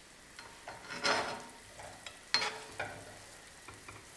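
A steel ladle scraping and clinking in a non-stick frying pan while tagliarini are twirled into a nest, over a faint sizzle. There is a longer scrape about a second in, then a sharp ringing clink and a few lighter taps.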